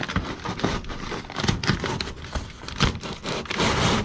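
Foil-jacketed flexible duct crinkling and rustling as gloved hands work its end over a sheet-metal collar, with irregular crackles throughout and a louder, denser stretch of rustling near the end.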